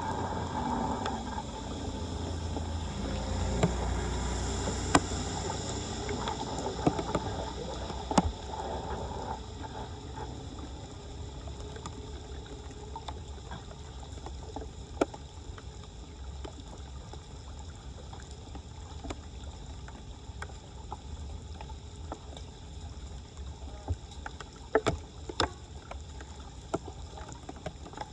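Floodwater sloshing and splashing, with a few sharp knocks here and there. Louder for the first ten seconds or so.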